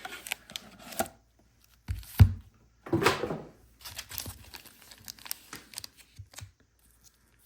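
Packaging being torn and crinkled by hand while a box of trading cards is unpacked, with scattered rustles and clicks and one thud about two seconds in.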